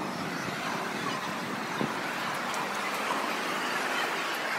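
Steady, even hubbub of a large crowd gathered under a big open-sided shed, with no single voice standing out.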